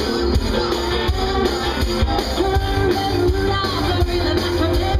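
Live rock band playing: singing in long held notes over guitar and drums with a steady beat.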